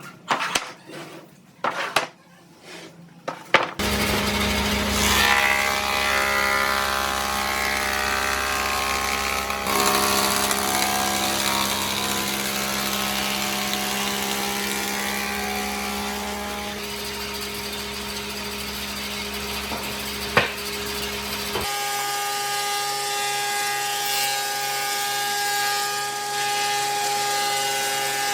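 Electric power tools working wood: a few sharp knocks at first, then a motorised tool cutting wood runs steadily for about eighteen seconds. It gives way to a different tool with a higher, steady whine that runs to the end.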